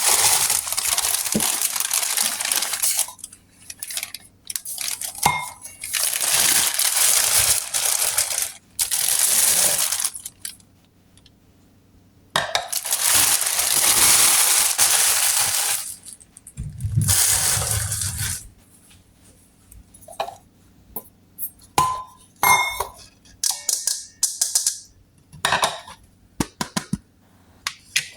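Packaging and plastic parts being handled during unboxing: several long stretches of rustling and crinkling, then a run of light clicks and clinks of hard plastic pieces near the end.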